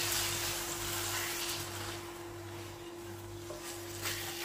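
Chicken liver sizzling in a tomato masala in a nonstick pan while a spatula stirs it. The sizzle is strongest at first, drops about two seconds in and picks up again near the end. A faint steady tone runs underneath.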